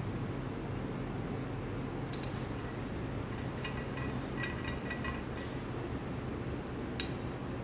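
Steady low room hum, with a run of small clicks and light clinks for a few seconds in the middle and one sharp click near the end.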